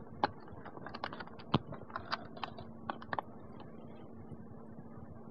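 Irregular sharp clicks and taps, about a dozen in the first three seconds, then only a faint steady hum and tape hiss.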